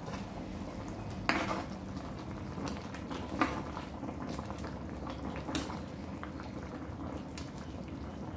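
Chicken and pickled mustard green soup bubbling at a boil in a pan while a stainless steel ladle stirs it. The ladle knocks against the pan three times, about one, three and a half, and five and a half seconds in.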